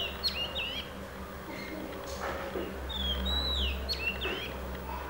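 A songbird singing two phrases of clear whistled notes with quick up-and-down glides, the second about three seconds after the first, over a low steady hum.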